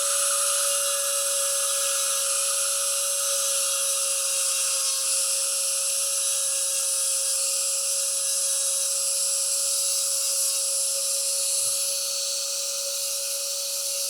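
High-speed rotary tool running steadily with an even whine, cleaning excess epoxy off a repaired rifle stock.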